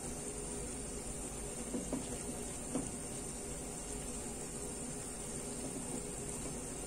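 Apricot jam boiling in a pot, a steady bubbling hiss with a few soft pops about two to three seconds in.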